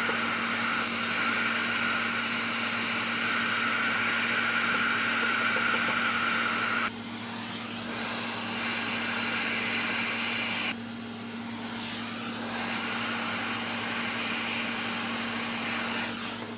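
Hot air rework station blowing a steady rush of air over a graphics card board, with a steady hum beneath it, heating the solder to fit two replacement resistors. The air noise drops in level about seven seconds in and dips again around eleven seconds.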